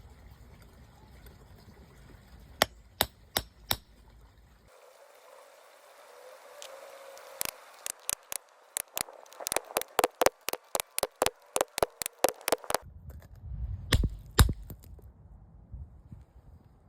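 Hammer striking a steel chisel into stone, sharp clinking blows. A few spaced strikes, then a quick even run of about four blows a second, and two heavier blows near the end.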